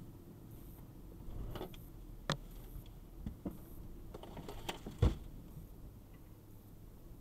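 Toyota FJ Cruiser creeping over rocky ground, heard from inside the cabin: a low, steady engine hum with scattered clicks and knocks from the truck's body and the stones under its tyres, the loudest knock about five seconds in.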